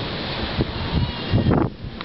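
Steady hiss of rain and wind in a thunderstorm, with a sudden low rumbling burst about one and a half seconds in.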